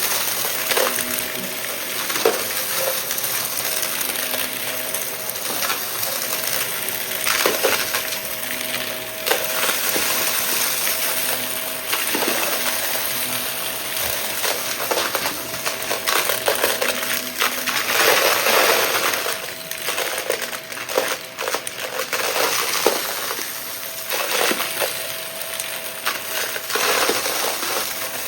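Shark vacuum cleaner running with a steady whine while small debris rattles and clicks as it is sucked up in irregular bursts.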